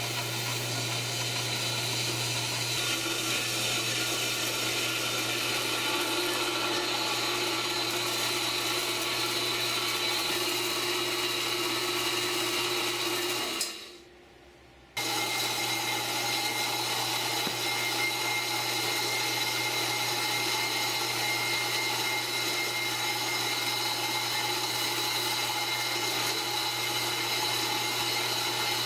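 Horizontal bandsaw running and cutting through 1.5 by 2 inch steel tubing, a steady machine whine with a metallic hiss. It cuts off abruptly about fourteen seconds in and starts again a second later.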